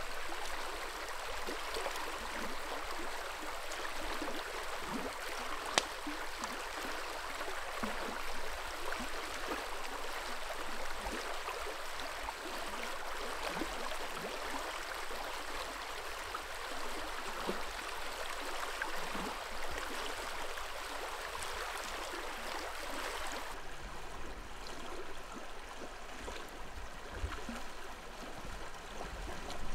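Creek water flowing steadily, a continuous rushing wash that turns softer and duller about three-quarters of the way through. A single sharp click stands out about six seconds in.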